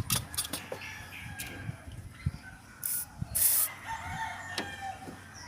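A rooster crowing in the distance, thin and drawn-out, over scattered clicks and brief rustles of hands refitting a spark plug wire on the engine.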